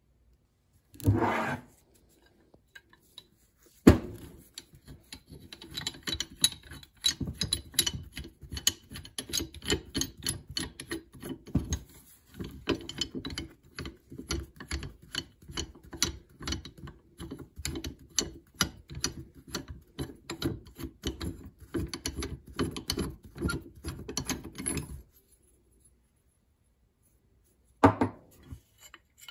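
Rusty Ridgid pipe wrench being taken apart by hand: the knurled adjusting nut is turned along the hook jaw's rusty threads, making a long run of rapid metal clicks and scraping that stops abruptly. There is a single sharp click before it and a knock near the end.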